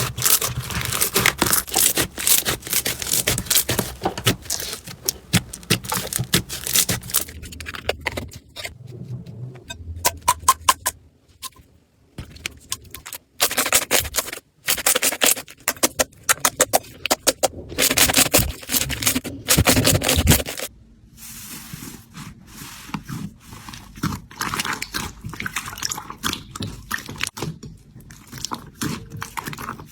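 Slime being squeezed, stretched and pressed by hand, with rapid crackling and popping clicks from bursting air bubbles or crunchy bits and a scraping, squishing noise between them. The pops thin out partway through, and the texture of the sound changes near the end.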